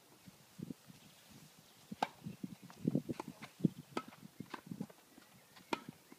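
Tennis rally: sharp pops of rackets hitting the ball, starting about two seconds in and coming every half second to second, with softer thuds of ball bounces and players' footsteps between them.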